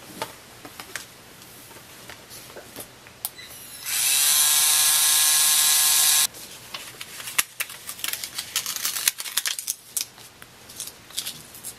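A 3Doodler 3D pen's small drive motor spins up about four seconds in and whirs steadily for roughly two and a half seconds as it pushes plastic filament through the hot nozzle, then cuts off sharply. Scattered light clicks and taps follow.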